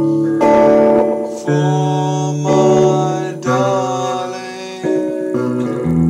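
Acoustic guitar strummed, a new chord struck about once a second and left to ring, with a man singing along.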